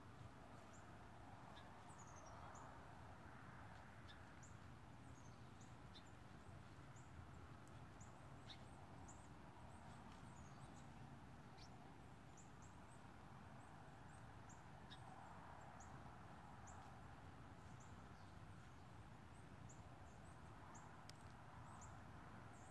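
Near silence: faint outdoor ambience with frequent short, high chirps from small birds scattered throughout, over a faint steady hiss.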